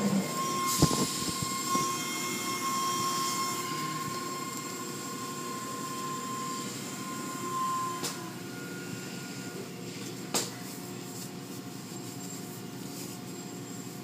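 Automatic tunnel car wash machinery running, heard from inside the car: a steady rush of spray and equipment noise with a high whine that stops about eight seconds in, and a couple of sharp knocks, one near the start and one about ten seconds in.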